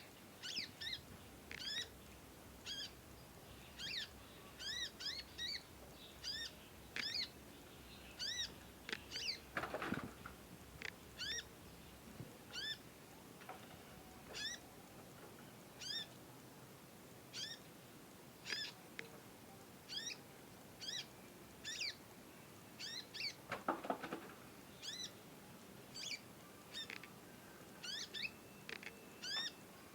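Juvenile olive-backed sunbird (kolibri ninja) giving a long run of short, high, sweeping chip calls, about one or two a second, as a young bird practising its song. A brief low thump-like rustle comes about ten seconds in and again near twenty-four seconds in.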